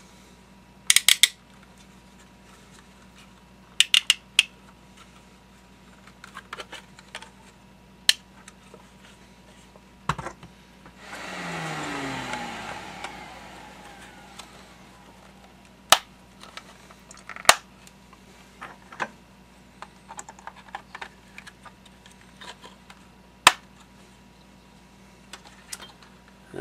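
Sharp clicks and clacks as a temperature controller and outlets are handled and pressed into the cutouts of a project-box faceplate, with a longer scraping rub a little before the middle.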